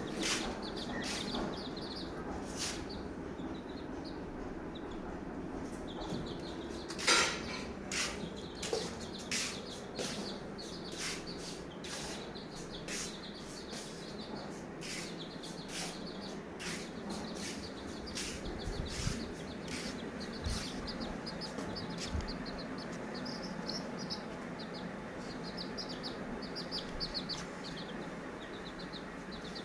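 A small bird chirping in quick runs of short, high notes, with scattered sharp clicks and taps around it, the loudest about seven seconds in.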